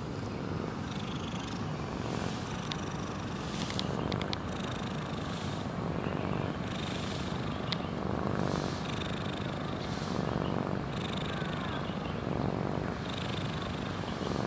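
A sleeping domestic cat snoring, fairly loud, a rasping sound that swells and fades with each breath about every second and a half.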